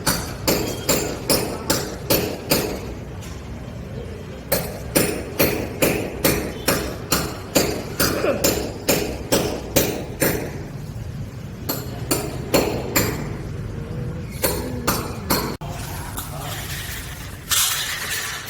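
A hammer striking repeatedly during renovation work, about three blows a second, in runs with short pauses. The blows stop a few seconds before the end, and a brief noisy scrape or rush follows.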